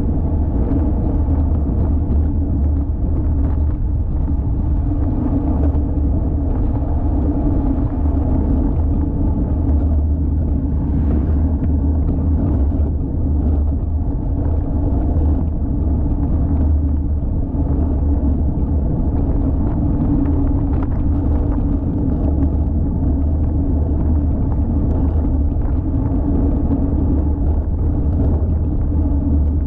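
Steady wind rumble on an action camera's microphone while riding a road bike, with a band of road and tyre noise above it.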